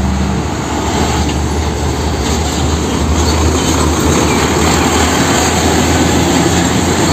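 Container semi-truck's diesel engine running steadily as the truck drives past, a constant low rumble mixed with tyre and road noise.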